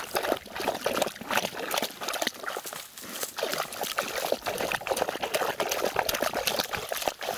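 Hunting laika digging with its front paws in shallow muddy water at a burrow entrance: a fast, irregular run of splashes and wet scrapes that stops at the end.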